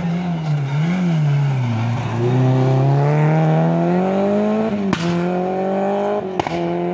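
Renault Clio rally car's engine passing at race pace. The revs drop and pick up again about a second in and sit low through the hairpin, then climb in a long rising pull as the car accelerates away. Two sharp cracks come near the end.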